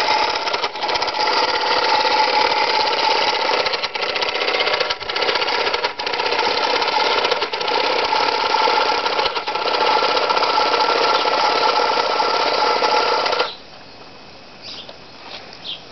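Small David Auld model marine steam engine running steadily at speed, a fast mechanical chatter heard close up. It drops away suddenly near the end, leaving a much quieter background.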